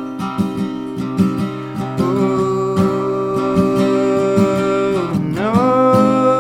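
Acoustic guitar strumming in an instrumental break of the song, with a long held melody note over it that slides up in pitch about five seconds in.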